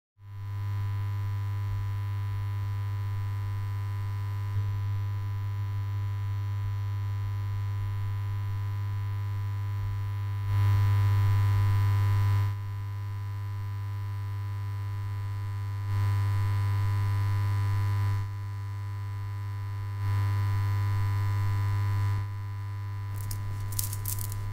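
Steady electrical hum with a hiss of static, as from a television showing an untuned snow picture, swelling louder three times for a couple of seconds each. In the last second, a run of quick sharp clicks begins.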